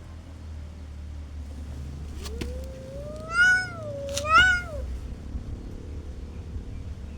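Cats caterwauling in a fight standoff: a long, low drawn-out yowl that slowly rises, starting about two seconds in, with two louder, higher wailing cries over it, likely from a second cat.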